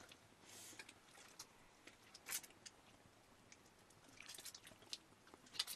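Faint wet squelches and a few soft crackles and drips as hands squeeze and knead a soft, wet lump over a metal pot; otherwise near silence.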